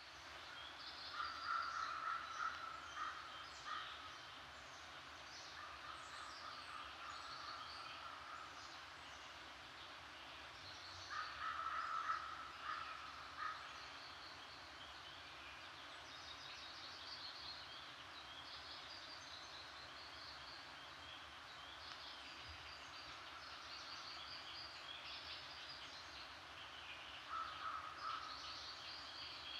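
Faint wild birds calling: a run of short repeated calls near the start, another in the middle and a brief one near the end, over higher chirping that goes on throughout.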